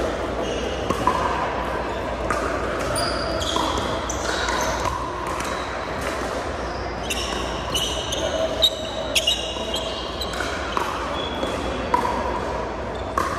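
Pickleball rally: paddles striking the plastic ball with sharp pops, many of them at irregular intervals, with short sneaker squeaks on the hardwood court. The hits echo in a large gym hall.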